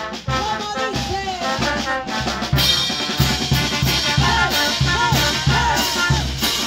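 Peruvian brass band playing: a steady bass-drum beat under a melody on brass and saxophones, with cymbals and snare joining in about two and a half seconds in.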